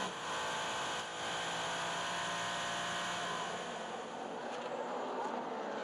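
Race car engine running on the circuit, a steady note that rises and falls slightly near the end.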